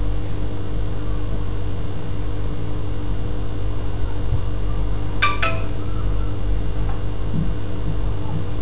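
Steady low electrical hum, with two quick clinks a fifth of a second apart about five seconds in.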